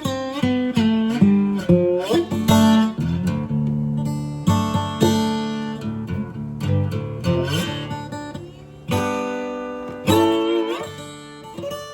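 Solo acoustic guitar playing an instrumental passage: plucked single notes and ringing chords, with several notes sliding up in pitch.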